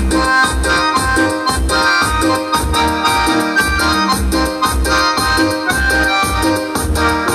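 Electronic keyboard playing a melody over a steady low beat of about two pulses a second.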